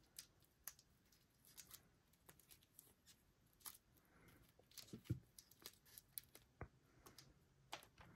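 Faint crinkling and small clicks of thin clear plastic protective film being peeled off a watch's caseback and crystal. A sharper tap comes about five seconds in as the watch is handled.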